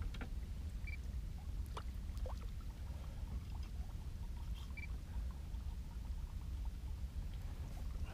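Quiet ambience in a small fishing boat on calm water: a low steady rumble with faint drips and light ticks, and two short high beeps about four seconds apart.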